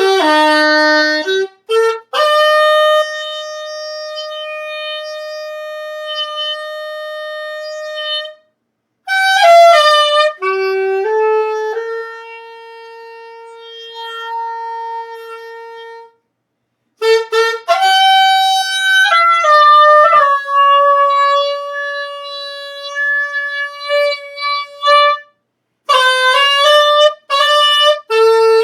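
Saxophone played solo: a slow melody of long held notes in phrases, with short breaks for breath between them.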